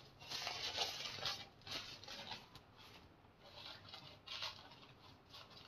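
Paper towels rustling and crinkling as hands lay them out and press them flat over the rice in a pan. The sound comes in a few short, soft spells.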